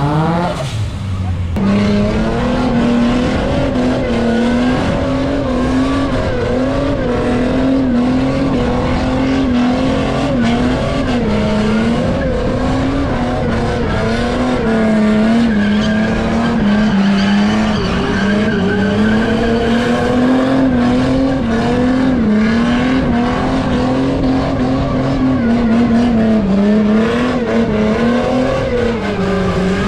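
Car engine held at high revs in a burnout, its pitch wavering up and down continuously as the driver works the throttle, over the noise of spinning tyres. About a second in, the revs drop briefly and climb back.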